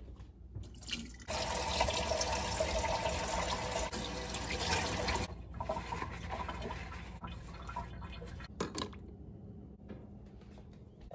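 Water running from a tap for about four seconds, starting a second in, then fainter trickling and handling sounds with a couple of knocks near the end.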